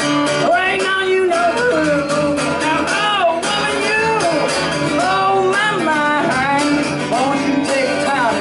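Live acoustic guitar music from a solo performer, with a melody line of arching notes that slide up and down in pitch over the guitar.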